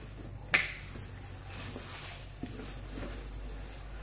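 Crickets chirping in a steady, evenly pulsing high trill, with one sharp click about half a second in.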